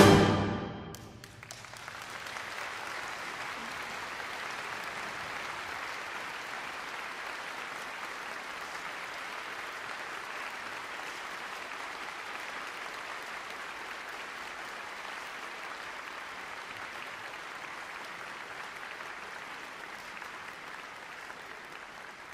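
The last chord of a concert band dies away in the first second, then an audience applauds steadily, fading slightly near the end.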